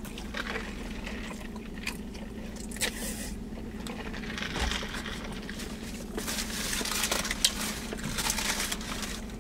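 Eating a paper-wrapped sub sandwich: a bite and chewing. From about six seconds in there is crackly paper wrapper handling.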